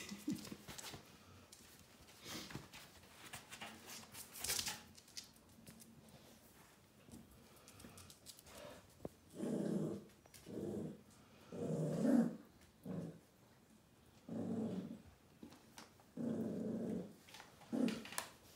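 Animal growling in a string of about seven low rumbles with short pauses between them, over the second half.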